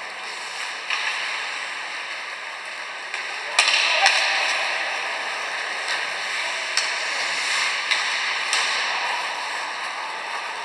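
Ice hockey being played in an arena: a steady hiss of skates on the ice, broken by about six sharp cracks of sticks striking the puck. The loudest come close together about three and a half to four seconds in.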